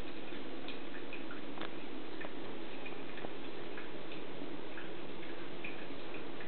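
Two dogs play-wrestling, heard as faint, irregular clicks and light clinks from their collars and tags, over a steady hiss.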